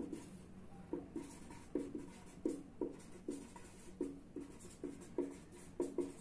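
Marker pen writing on chart paper: short squeaking strokes, about two or three a second, as each letter is drawn.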